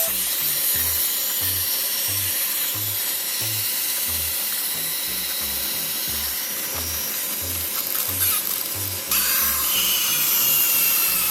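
Background music with a steady bass beat, over the high-pitched whirring of a wind-up toy's clockwork mechanism running down.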